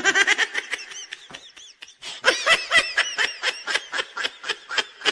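Dog making rapid strings of short, high, laugh-like yips and chattering noises in two runs with a brief pause between them.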